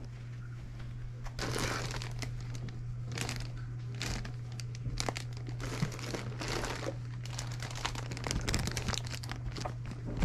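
Clear plastic zip-top bags of small trinkets crinkling as they are picked up and rummaged through, in irregular rustles starting about a second in.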